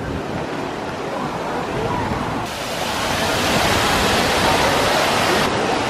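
Steady rush of water from a waterfall feature pouring into an outdoor swimming pool. It grows louder and brighter about two and a half seconds in.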